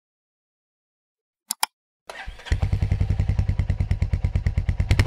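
Two quick clicks, then a motorcycle engine starts about two seconds in and settles into an idle with a fast, even beat of firing pulses.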